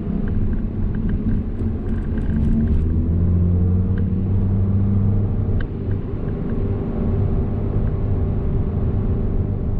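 The 2.0-litre turbocharged four-cylinder (EA888) of a 2011 Audi TT Quattro, heard from inside the cabin while driving in second gear. Its note rises about three seconds in as the revs climb from about 2,000 to about 3,000 rpm, then holds steady for a sustained-speed test run.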